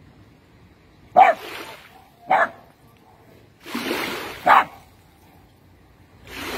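A dog barking: three short, sharp barks, the first about a second in and the last about four and a half seconds in. Water splashes and sloshes in between.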